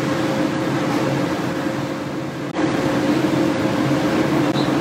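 A steady low mechanical drone with a faint constant tone running through it, briefly dropping off about two and a half seconds in.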